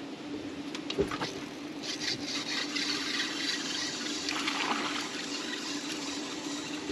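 Water splashing and trickling over a steady low hum, with a single click about a second in.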